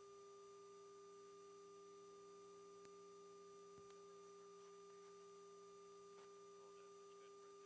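Near silence: a faint, steady electronic hum of a few held tones, a low one with a higher one above it, on a quiet radio intercom line.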